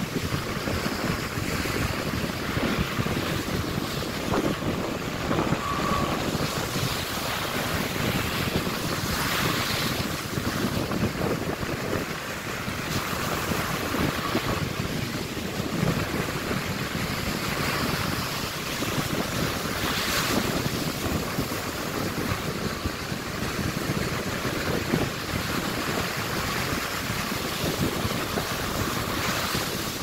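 Ocean surf breaking and washing up on a sandy beach, a continuous rush of water that swells louder as each wave breaks every few seconds. Wind buffets the microphone underneath.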